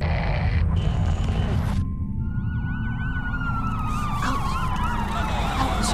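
Emergency vehicle siren wailing in a fast up-and-down warble, along with a second steady tone that slowly falls in pitch, over a continuous low rumble. A burst of static-like noise fills the first second and a half before the siren starts.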